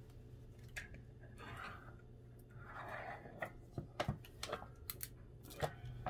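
Plastic button-press cutting die being handled and set into place on the press: soft sliding rustles in the first half, then a scatter of light clicks and knocks as it seats under the press head.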